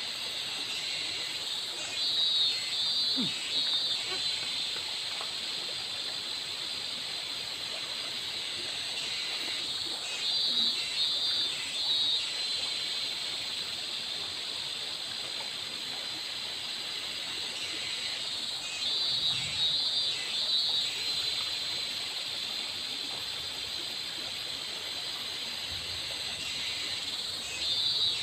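Shallow river flowing over a riffle under a steady high hiss, with a high pulsing animal call of a few quick pulses that comes back about every eight seconds, four times.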